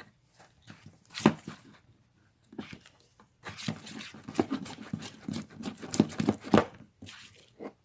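Freshly mixed glue-and-detergent slime being stirred and kneaded by hand, giving irregular wet, sticky clicks and squelches. There is a sharp click about a second in, and a dense run of crackling in the second half.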